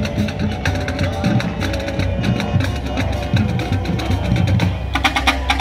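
Music with drums and a steady beat. About five seconds in it turns into a fast, even rattle of beats over a held low note.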